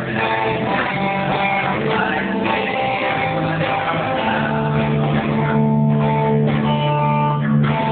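Guitar strumming chords with a voice singing along, in a dull, low-fidelity recording with nothing above the middle-high range.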